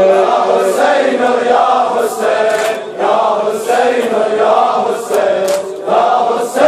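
A congregation of men chanting a Muharram latmiyya lament together, in sung phrases with short breaks between them.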